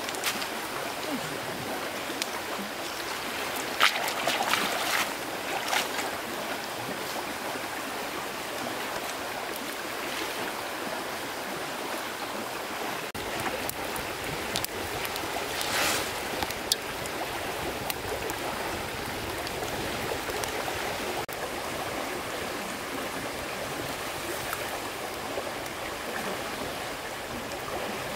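Stream water running steadily, with a few light knocks and clicks about four, six and sixteen seconds in.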